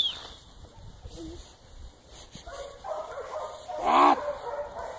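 A dog barking and yipping in short calls, the loudest a brief falling bark about four seconds in.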